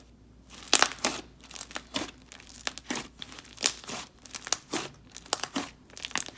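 Hands squishing and kneading a squishy, creamy pink clay slime, giving irregular sticky crackles and pops.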